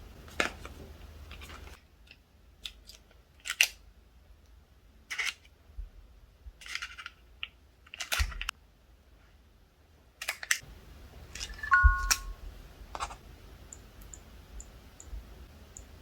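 Handling noises from a smartphone and smartwatch during setup: scattered taps, clicks and knocks. About twelve seconds in there is a short two-note electronic chime. Near the end come faint, evenly spaced high ticks, about two a second.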